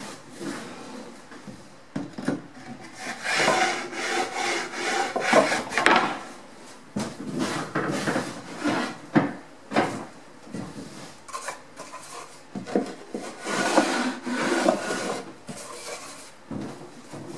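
Plywood panels sliding and scraping across a wooden workbench in irregular strokes, with sharp knocks as boards are set down.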